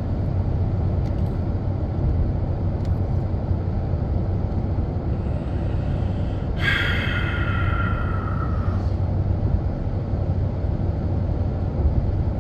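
Steady low rumble of a pickup truck driving on a highway, heard from inside the cab: engine and road noise. About seven seconds in, a brief high tone with several pitches sounds for about two seconds, falling slightly in pitch.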